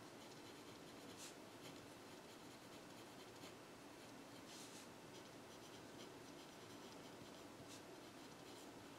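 Faint scratching of a pencil writing on paper, in a few short soft strokes over quiet room tone.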